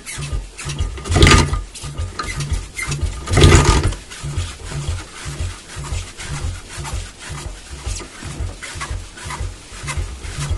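A 1975 Rajdoot's two-stroke single-cylinder engine being kicked over after long disuse: it turns over in uneven low pulses, with two louder surges a second or two in, but does not settle into running.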